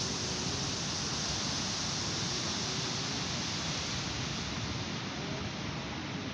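Waves breaking on a sandy beach: a steady rushing surf noise, with wind rumbling on the microphone underneath.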